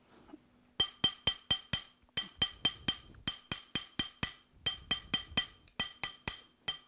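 Small hammer tapping a silver ring on a steel ring mandrel to true it round. The taps come in quick bursts of four to six, about five a second, with short pauses between, starting about a second in. Each blow gives a bright metallic ring.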